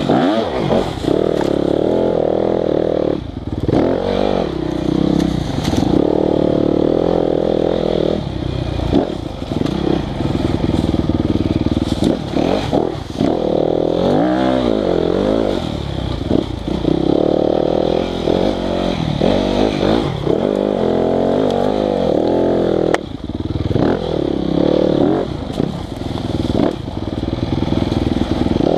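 Yamaha YZ250FX 250 cc four-stroke single-cylinder enduro bike engine being ridden hard, revving up and dropping back over and over as the throttle is worked, with occasional knocks from the bike over rough ground.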